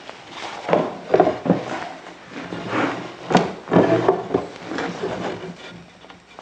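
Wooden chair parts knocking and rubbing against each other and the workbench as a curved rail is fitted between the legs: a string of irregular sharp wooden knocks.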